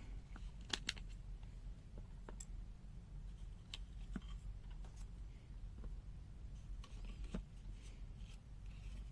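Faint, scattered light clicks and taps at irregular intervals as an opened digital multimeter and its parts are handled, over a steady low hum.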